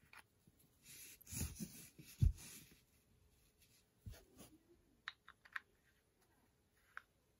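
Small tabletop handling sounds while a gold-testing acid bottle is used: a rustle as the plastic dropper bottle and its cap are handled, a dull thump about two seconds in, then a few light clicks around five seconds in and one more near the end.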